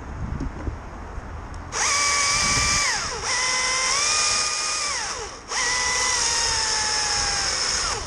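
Battery-powered chainsaw run in three bursts of one to two and a half seconds, a high motor whine over a strong hiss. The pitch drops away each time the trigger is let go, and during the last burst it sags slowly before stopping.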